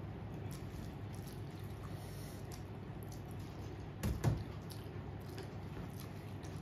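Eating sounds: soft wet squishing and chewing of rice and fish curry, with faint clicks over a steady low hum and one louder knock about four seconds in.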